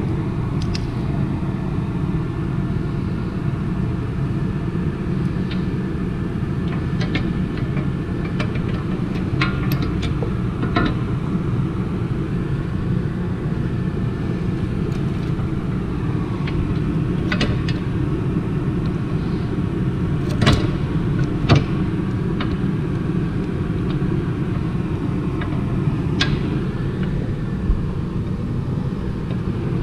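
A steady low rumble, with scattered short clicks and knocks of engine parts and hand tools being handled, the sharpest about two-thirds of the way through.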